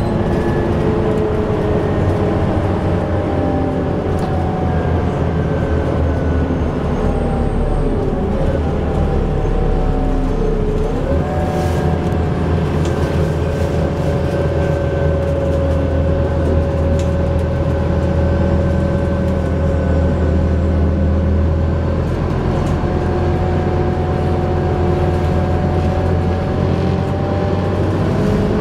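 Scania double-decker bus engine and drivetrain heard from inside the passenger saloon while the bus is driven hard. It is a loud, steady low drone whose pitch drifts slowly up and down as the bus pulls, with a quick rise in pitch about eleven seconds in.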